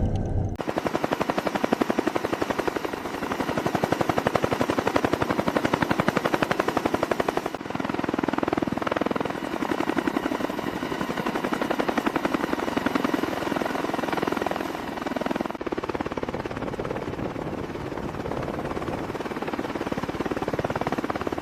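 Rapid, even mechanical pulsing that runs without a break, changing abruptly about 7.5 and 15.5 seconds in.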